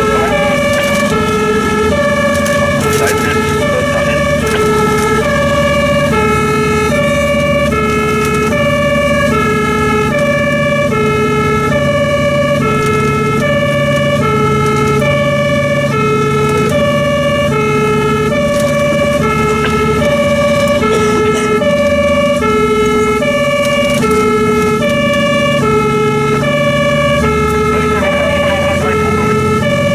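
German two-tone fire-engine siren (Martinshorn) alternating steadily between two notes, heard from inside the truck's cab. The truck's engine rumbles underneath.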